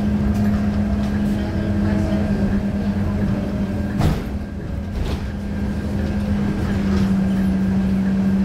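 Scania K230UB single-deck bus underway: its diesel engine running with a steady hum and low road rumble. A single knock about four seconds in.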